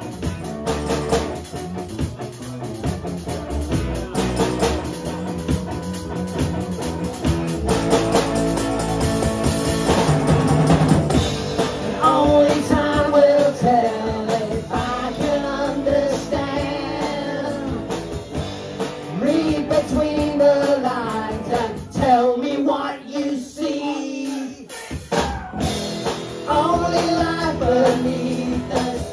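Live rock band playing, with electric guitar, bass and drum kit, and a woman singing lead. About two-thirds of the way through, the bass and drums drop out for a couple of seconds while the voice carries on, then the band comes back in.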